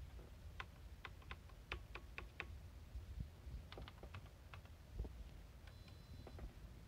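Keystrokes on the Esprit 125C terminal's keyboard: a quick run of about eight key clicks, then a few scattered ones and a soft thump, with a faint short high beep near the end.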